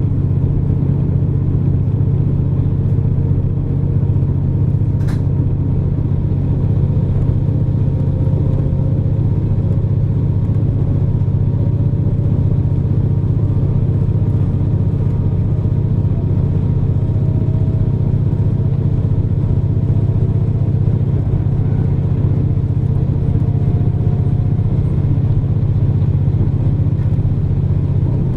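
KiHa 47 diesel railcar running along the line, heard from inside the car: a steady low engine and running drone, with a faint whine that rises slowly in pitch. One brief click about five seconds in.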